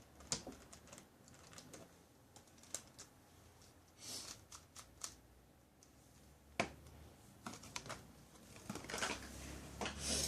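Scattered, irregular clicks and clacks of hard plastic puzzle pieces being snapped back into a Shengshou Megaminx, with a couple of short rustles.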